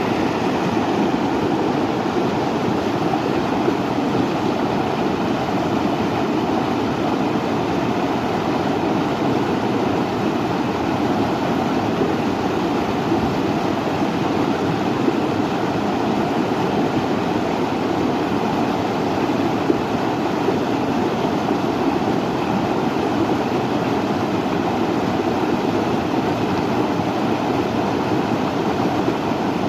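Steady, unbroken rushing noise of a nature ambience recording, even in level throughout with no distinct events.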